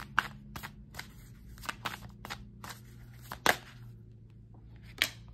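A deck of oracle cards being shuffled in the hands: an irregular run of short card clicks and snaps, with a sharper snap about three and a half seconds in and another near the end.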